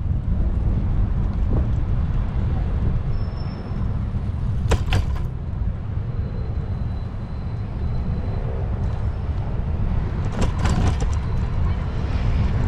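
Steady low rumble of wind and road noise on a bicycle ride, with two short clatters, about five seconds in and again about ten seconds in.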